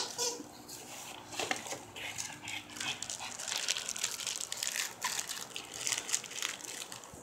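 Paper packing and packaging in a cardboard box crinkling and rustling as a pug noses through it and a plush toy is lifted out: a run of small, irregular crackles.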